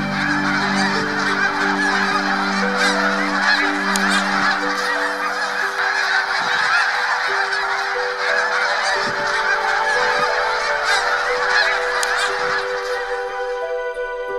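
A huge flock of snow geese calling all at once, a dense din of overlapping honks that thins out near the end. Low held tones sound steadily underneath.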